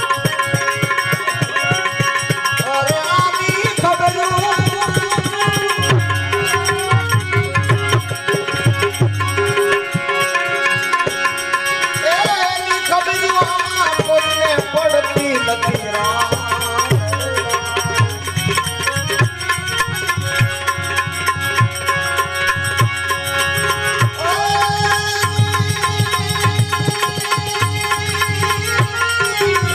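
Instrumental passage of a Gujarati bhajan: tabla keeping a fast, steady rhythm under a sustained melodic instrument line.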